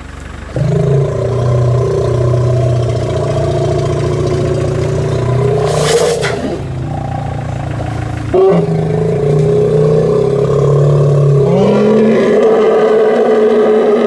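A vehicle engine running close by, its pitch stepping up and down as it is revved and rising near the end, with a sharp click about six seconds in.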